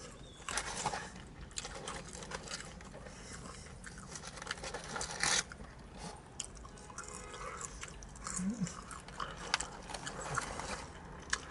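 Close-up chewing and crunching of battered fried whiting and fries, with many irregular crunches and a few louder bursts. Paper packaging rustles near the end.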